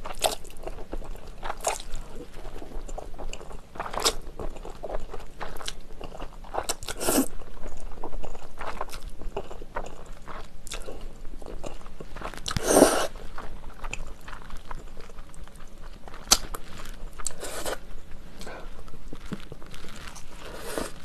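Close-miked eating of jajangmyeon: noodles slurped in, then chewed with wet mouth sounds and crisp crunching bites. A longer slurp stands out about halfway through.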